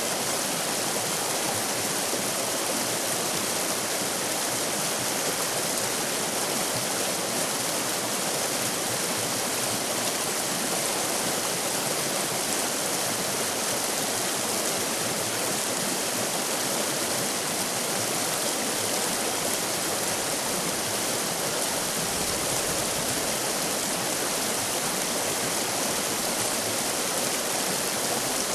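River rapids: water rushing steadily over rocks in a constant, unbroken hiss.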